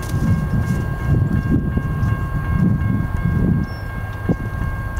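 Railroad grade-crossing warning bell ringing steadily while the crossing gates come down, over a low, uneven rumble.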